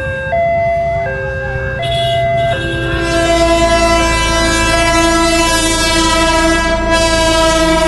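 Level-crossing warning alarm sounding two alternating tones. About two and a half seconds in, an approaching train's locomotive horn starts a long, continuous blast of several notes at once over the low rumble of the train.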